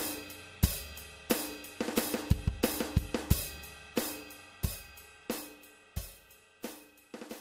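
Background music led by a drum kit: cymbal and drum strikes on a steady beat with short quick fills, gradually getting quieter.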